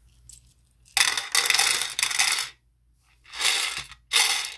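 Small plastic model-kit pieces (moulded shrimp, egg and meat lumps) dropped into a plastic cup onto the plastic noodle block, clattering: one long rattle, then two shorter ones near the end.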